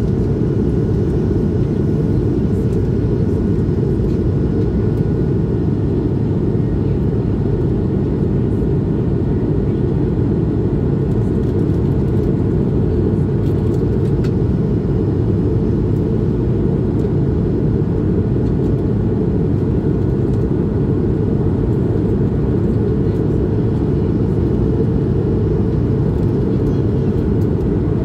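Steady in-flight cabin noise of an Airbus A220-300, heard from a window seat toward the rear of the cabin: an even, low rumble from its Pratt & Whitney PW1500G geared turbofan engines and the air rushing past the fuselage, with a faint thin tone above it.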